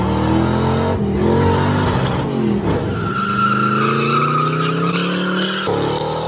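Car engines revving and climbing in pitch under hard acceleration, broken by several abrupt cuts. From about three seconds in, a third-generation Chevrolet Corvette's V8 revs over a steady tire squeal as its rear tires spin and smoke on launch.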